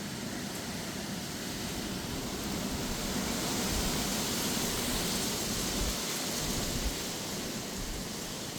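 Strong gusty wind with rain, a steady rushing hiss that swells into a stronger gust about three seconds in and eases off near the end. Low rumbling buffeting from the wind hitting the microphone runs under it.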